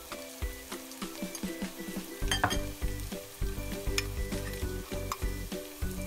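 Diced potatoes and onion frying in oil in a pan, a steady sizzle, with a few sharp clicks.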